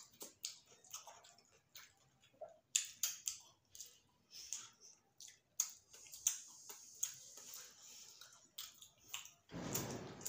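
Mouth sounds of eating rice and chicken curry by hand: chewing, with many short wet smacks and clicks. About nine and a half seconds in, a louder brief rustling noise.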